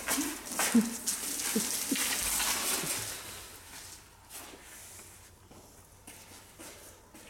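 Alabai puppy moving about, its steps pattering, with a few short low sounds and a rustling noise in the first three seconds, then only faint light taps.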